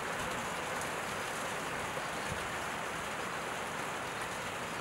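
Steady, even hiss of water, unchanging throughout.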